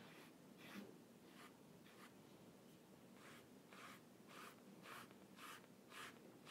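A brush stroking paint across a stretched canvas: faint, scratchy strokes repeating about twice a second.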